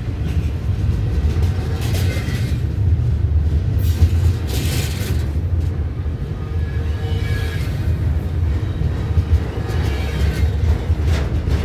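CN freight train rumbling past: a steady, loud low rumble with a few brief swells of higher hiss, about four and a half, seven and eleven seconds in.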